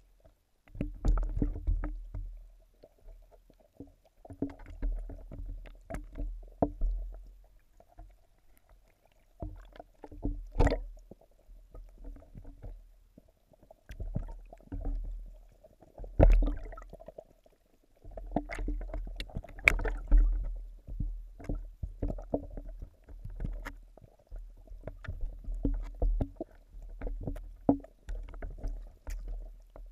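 Muffled sound from a camera held underwater in a pond: irregular low rumbles and swells of water movement with scattered sharp clicks and knocks, as goldfish and carp swim up against it.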